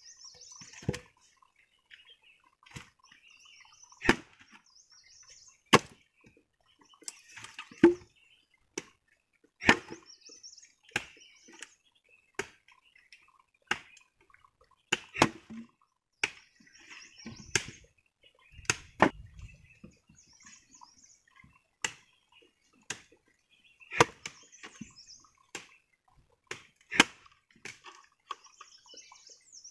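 Axe blows chopping into a log for firewood: a long series of sharp wooden chops at an uneven pace, about one every one to two seconds, some much louder than others.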